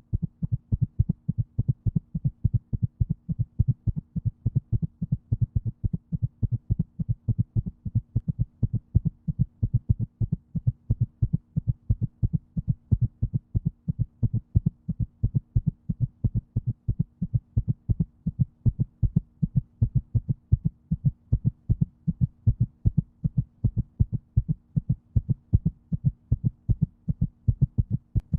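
A heartbeat: low beats repeating at a steady, even pace, over a constant low hum.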